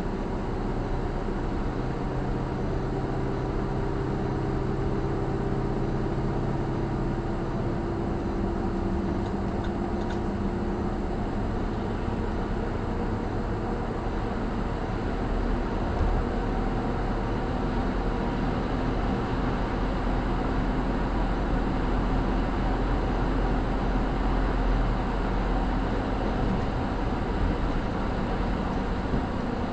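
A car driving at road speed, heard from inside the cabin: steady engine hum and tyre and road noise. The hum shifts in pitch during the first ten seconds, and the low rumble grows a little louder about halfway through.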